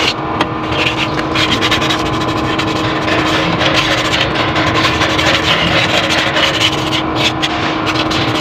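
Cloth rubbing and brushing against the microphone in scratchy rustles, over a loud, steady machine hum.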